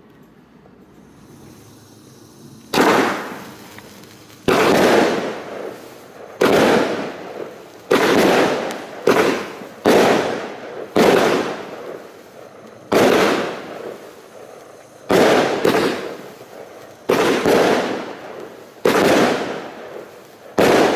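Argento Kalypso 25 mm fireworks cake firing its shots. After a quiet start, about three seconds in a run of loud bangs begins, roughly one every one to two seconds, each fading over about a second.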